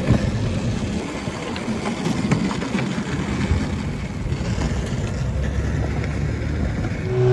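Longboard wheels rolling over rough concrete paving: a steady low rumble with a few faint clicks as the wheels cross cracks and joints.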